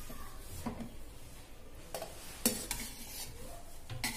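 A spoon stirring and scooping freshly cooked rice in an aluminium pressure cooker, with a few light clinks of the spoon against the pot, the clearest about halfway through and near the end.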